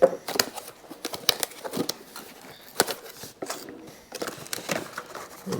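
Cardboard box being opened and handled: flaps and cardboard scraping and rustling, with a string of sharp, irregular clicks and knocks.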